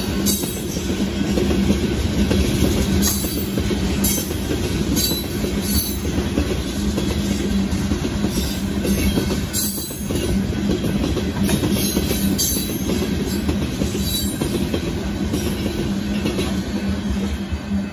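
Loaded limestone freight cars rolling past close by: a steady rumble of steel wheels on rail, with repeated clacks as the wheels cross the rail joints.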